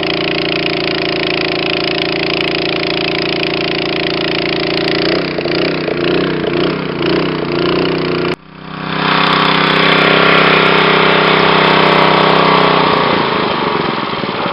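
Small Honda gas engine of a Niftylift TM34G boom lift running steadily, driving the hydraulics while the boom is let down; its pitch wavers for a few seconds, then the sound breaks off sharply about eight seconds in and comes back as a steady run. Near the end the engine note changes as the throttle lever is worked.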